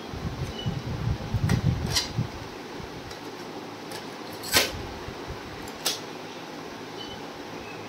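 A cassette tape being handled and loaded into a Philips RM 210 portable cassette recorder: rumbling handling noise, then a few sharp plastic clicks, the loudest about four and a half seconds in as the tape door shuts and another about a second later. A steady faint hiss runs underneath.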